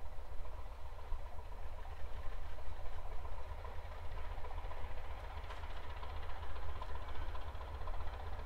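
Diesel engine of the Class 207 'Thumper' diesel-electric multiple unit 1317 running steadily, a constant low throb with a steady hum over it.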